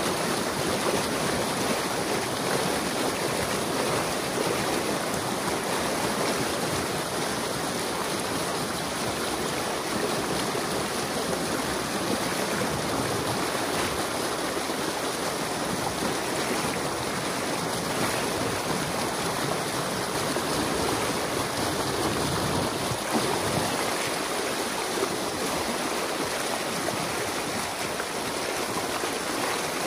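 Impounded water rushing steadily through a breach cut in a beaver dam, a continuous churning rush as the flooded pond drains.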